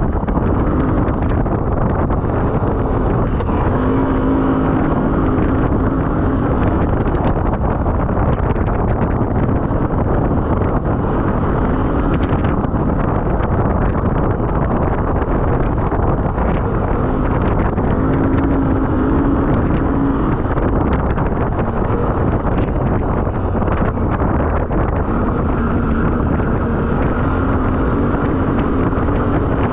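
A 4x4 off-road vehicle's engine running as it drives over a gravel trail, with wind buffeting the microphone. The engine note comes up more clearly at a few points, about four seconds in, around eighteen to twenty seconds, and near the end.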